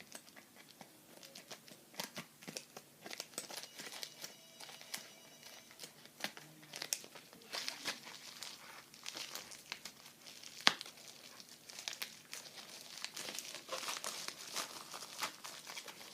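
Parcel packaging being opened by hand: crinkling and rustling with scattered clicks and some tearing, and one sharp snap about ten and a half seconds in.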